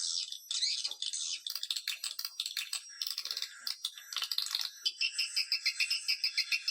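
Swiftlet call-lure recording: high, chirping swiftlet twitters that give way, about two-thirds of the way in, to a fast rattling trill of clicks.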